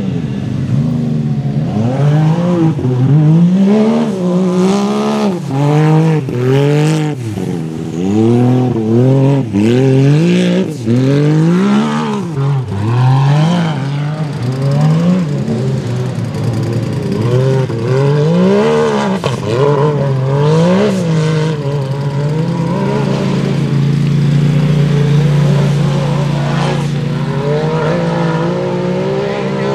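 Race UTV engine revved hard in repeated bursts, its pitch rising and falling about once a second, then held at a steadier high rev for a few seconds near the end.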